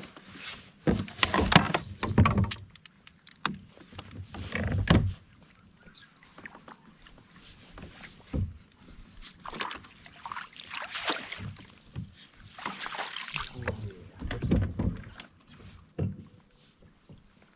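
Irregular bursts of splashing, bumps and rustling around a small fishing kayak while the angler moves in it and works a fish, with a few sharp clicks.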